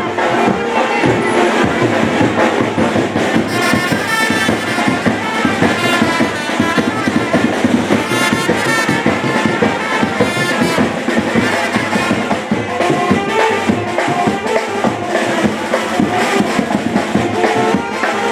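Loud music with brass instruments and drums playing without a break.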